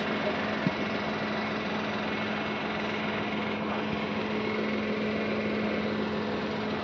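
Diesel engines of heavy lifting machinery (mobile cranes and hydraulic girder trailers) running steadily, a constant engine drone with a steady hum under it.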